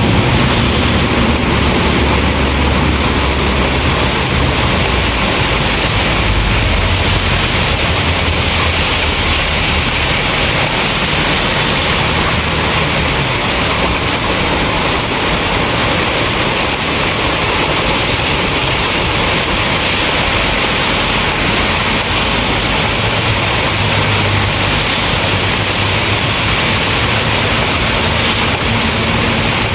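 Steady heavy rain falling, an even hiss with a low, shifting rumble underneath.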